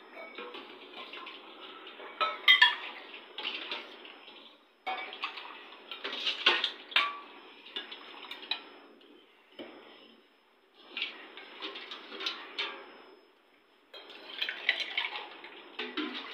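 Stainless steel mugs and a steel ladle clinking and knocking on a marble counter, with ice rattling as drink is ladled from a steel bowl into the mugs. It comes in several bursts with short pauses between them.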